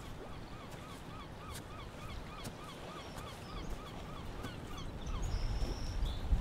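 A bird calling in a quick run of short up-and-down notes, about four a second, which stops a little over halfway through. A brief higher call follows near the end, over low wind rumble.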